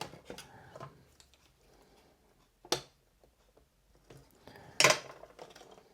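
Small plastic handling clicks as a cable connector is fitted to a sensor inside a 3D-printer filament unit: faint ticks at first, then two short sharp clicks, the louder one a little before the end.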